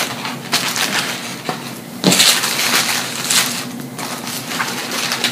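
Paper food wrappings and a paper-lined fries tray rustling and crinkling as they are handled, loudest from about two seconds in.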